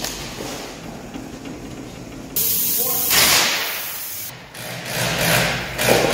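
A bead blaster fires a sudden blast of air into a tubeless truck tire to seat its bead on the rim: a loud hiss starting about two seconds in and lasting about two seconds, blowing out a cloud of bead lube. More air hissing builds a second later.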